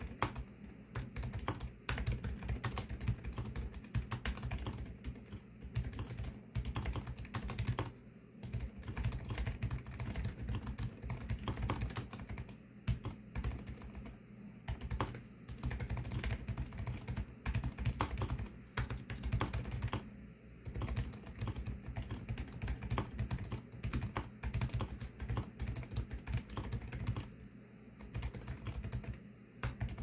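Fast continuous typing on a Varo V87 mechanical keyboard with Varo Silent White 35 g linear switches, whose built-in dampeners soften each keystroke. The keystrokes come in a dense stream with a few short pauses.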